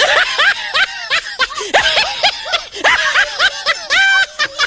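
Children laughing and giggling in high voices, many short bursts in quick succession, with a longer held squeal near the end.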